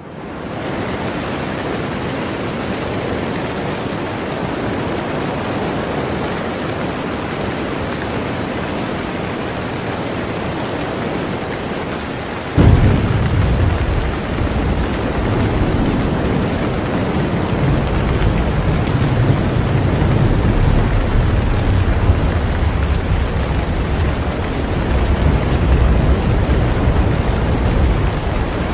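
Steady hiss of heavy rain. About halfway through, a deep rumble comes in suddenly and keeps going, swelling and easing.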